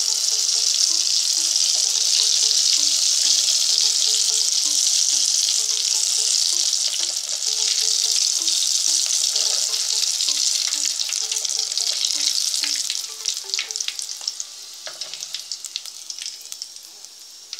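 Vareniki deep-frying in hot oil in a cast-iron kazan, a loud steady sizzle. About 13 seconds in the sizzle drops and thins to scattered crackles and pops as the fried dumplings are lifted out with tongs.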